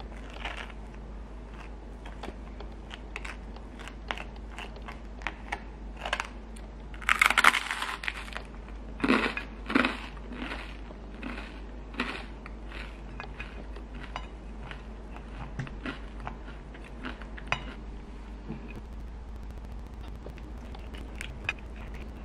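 Knife spreading soft white cheese over crusty toasted bread, with crackly scraping strokes on the crust and small clicks, loudest in a spell of scraping from about seven to ten seconds in.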